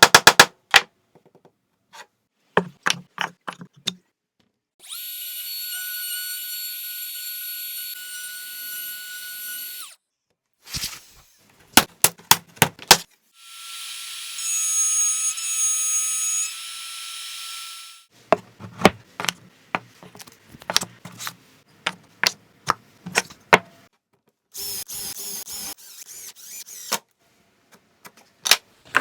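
Woodworking shop sounds without talk: three spells of a high-pitched power tool running steadily with a whine, each several seconds long, alternate with runs of sharp taps and knocks of hand work on wood.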